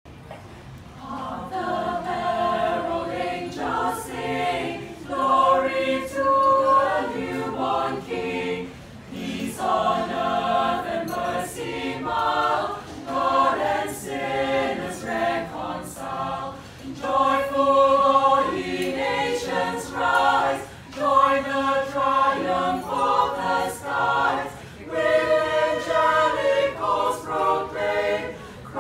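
Small mixed choir of men and women singing a Christmas carol a cappella, in phrases of a few seconds with short breaks for breath between them.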